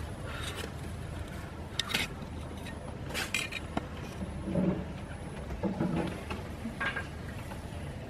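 Metal hand trowel scraping and clinking against the inside of a ceramic pot as soil is dug out, a handful of short scrapes with a couple of duller thuds near the middle, over a steady low background rumble.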